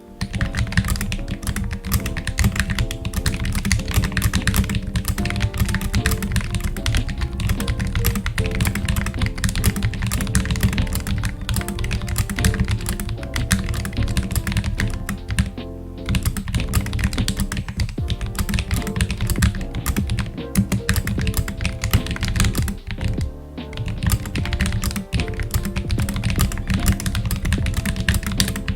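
Fast touch typing on a mechanical keyboard with blank OEM-profile keycaps: a dense, continuous stream of thocky keystrokes at about 106 words per minute, broken by two brief pauses, over background music.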